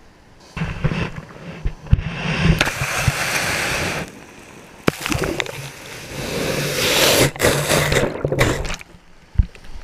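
Water sloshing and splashing around a camera at the water's surface, in loud uneven surges with sharp knocks against the housing, starting about half a second in.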